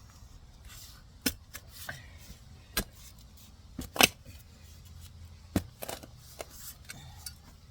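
Digging with a shovel in soil and roots: a series of separate sharp scrapes and strikes, the loudest about four seconds in.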